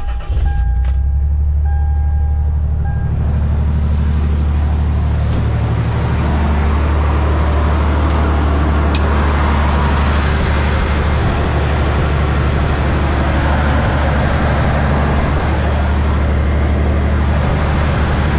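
1997 Toyota 4Runner engine catching just after the start and then running steadily, after a just-replaced OEM part has been fitted. A repeating electronic chime sounds over the engine for the first three seconds.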